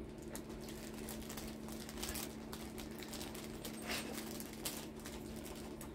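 A dog at a treat, making faint, irregular crunching and rustling sounds over a steady low hum.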